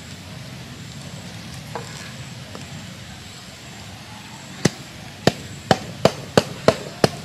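Seven sharp, quick knocks of a coconut-shell spoon against a bamboo tube as the filling is packed down into it. They start a little past halfway and come about three a second, over a low steady hum.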